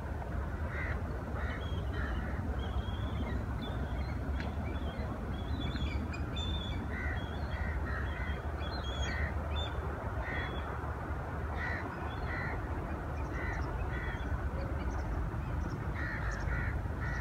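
Birds calling in the trees: short harsh calls repeated about once or twice a second, with higher chirps mixed in, over a steady low rumble.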